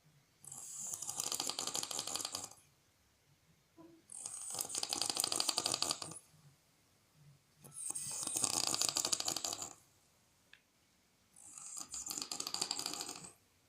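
A sleeping person snoring: four long snores of about two seconds each, every one with a fast flutter, spaced by quiet pauses between breaths at an even rhythm of about one every three and a half to four seconds.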